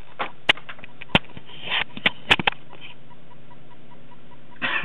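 Handling noise of a camera being turned and set back in place: a few sharp clicks and knocks about half a second, one second and two seconds in, with brief rustles between them.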